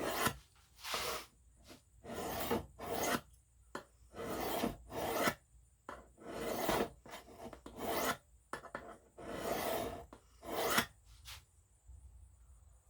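S35VN steel knife blade scraped along a sharpening stone in repeated strokes, roughly one a second, each a raspy grinding swipe. The strokes stop about a second and a half before the end. The edge is being ground back to remove chips.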